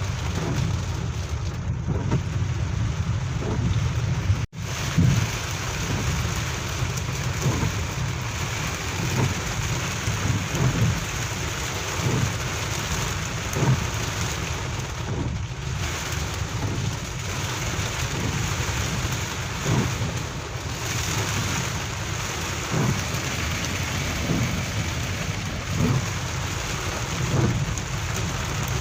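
Heavy rain pouring steadily, with a low rumble underneath. The sound drops out for a moment about four seconds in.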